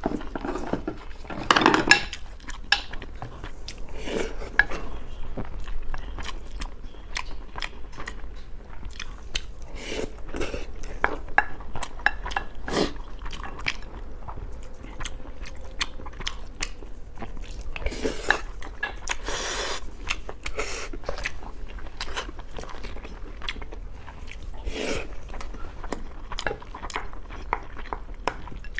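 A person eating braised pork over rice: chewing and biting in irregular bites, with eating utensils clinking against the bowl now and then.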